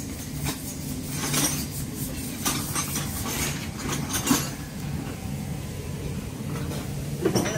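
Isuzu NPR vacuum truck running with a steady low hum, with a few sharp metallic clinks and knocks over it, the loudest about four seconds in and another near the end.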